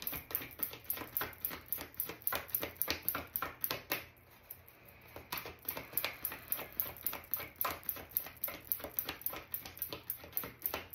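A deck of oracle cards being shuffled by hand: a quick run of light card slaps, about four or five a second. They pause for about a second near the middle, then pick up again.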